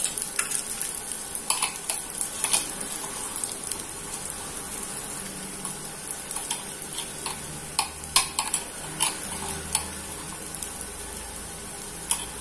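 Potato cutlets shallow-frying on an iron tawa over a gas flame turned up high to crisp them, a steady sizzle. Scattered light clicks and taps come from hands working the potato mixture in a steel bowl, several of them close together about two and eight seconds in.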